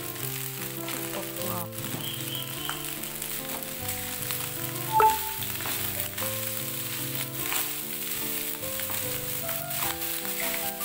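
Cooked rice sizzling as it fries in an oiled pan, stirred and turned with a wooden spatula, with small scrapes and taps against the pan. A short sharp tap about five seconds in is the loudest sound.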